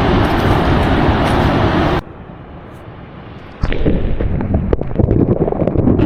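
Steady rushing roar of a waterfall, which cuts off abruptly about two seconds in. After a short quieter stretch, a loud low rumble with sharp crackles of wind buffeting the microphone takes over at about three and a half seconds.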